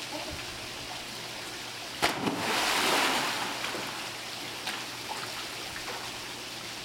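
A dog jumps into a swimming pool about two seconds in with a big splash, then swims, over the steady trickle of the pool's wall fountain jets.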